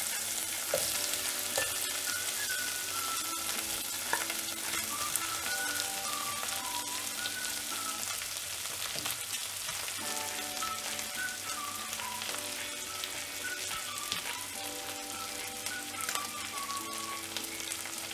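Pieces of dried ribbon fish (vaala karuvadu) sizzling in hot oil in a saucepan as more pieces are dropped in: a steady frying hiss.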